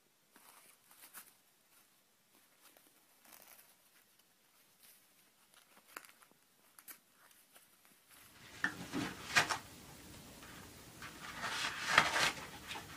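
Toilet paper being shredded and pulled by cats. At first it is faint crinkling and tearing of loose paper. About eight seconds in it turns into louder rustling and tearing as paper is dragged off a roll, with a couple of sharp knocks.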